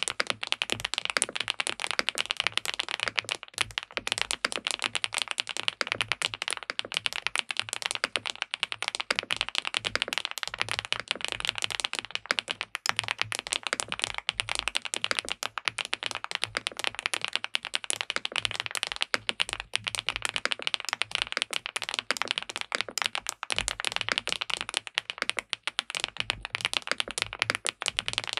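Fast, continuous typing on an SPM PL87W Mongdol87 tenkeyless mechanical keyboard with linear switches and a polycarbonate plate. It makes a steady stream of dense keystroke clacks.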